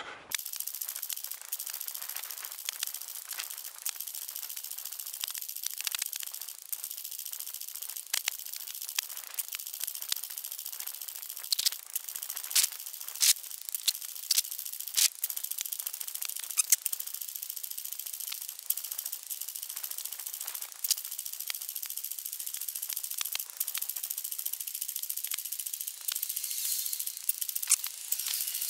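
Handling noise from a camera jostled while running: a steady high hiss of rubbing against the microphone with irregular sharp clicks and rattles.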